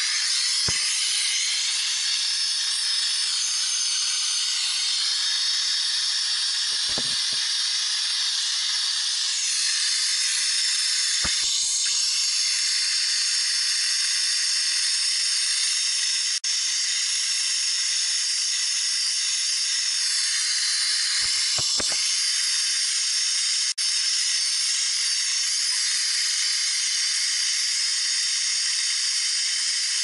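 Hand-held gas torch flame hissing steadily while it heats a copper refrigerant line joint on the compressor to unbraze it. A few light knocks sound under the hiss.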